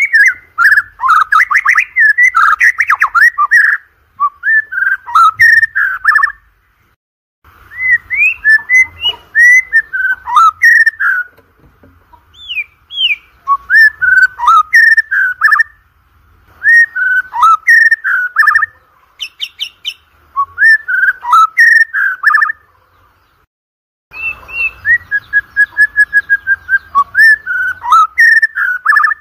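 White-rumped shama (murai batu) singing loudly, in rapid phrases of whistled, sweeping and chattering notes broken by short pauses. Near the end it delivers a fast run of evenly repeated notes.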